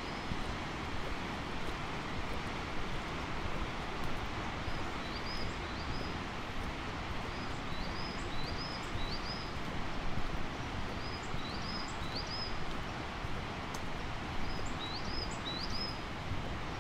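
A bird calling repeatedly in short, high, upward-flicking chirps, two or three at a time, every three seconds or so from about five seconds in. Under it runs a steady rushing noise.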